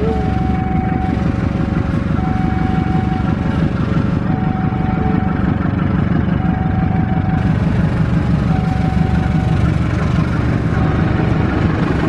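KAI CC 206 diesel-electric locomotive hauling a passenger train away from the station, its diesel engine running steadily under load as it draws near and passes close by.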